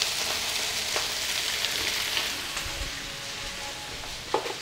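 Sliced zucchini frying in oil in two frying pans: a steady sizzle that eases off a little partway through, with one short knock near the end.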